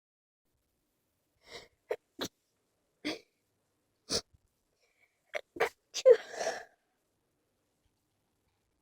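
A person's stifled sneezes: a string of short, sharp, held-in sneezes with silence between them, the loudest and longest about six seconds in.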